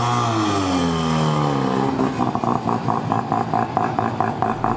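A sports car engine revving, rising and then falling in pitch over the first second and a half, then running on with an even, pulsing note as cars drive off.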